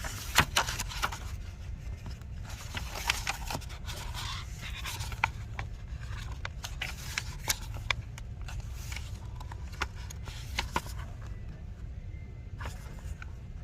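Footsteps crunching and scraping in fresh snow at an irregular pace, over a steady low rumble.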